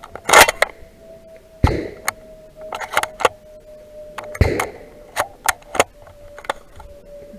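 Shotgun being loaded and made ready: a run of sharp clicks and clacks from shells and the action, with three heavier knocks about half a second, a second and a half, and four and a half seconds in.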